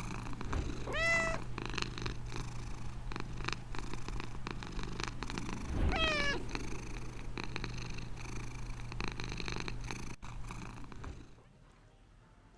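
Scottish fold cat meowing twice, about five seconds apart, over repeated short scratching and scraping sounds as it paws around its food to bury it.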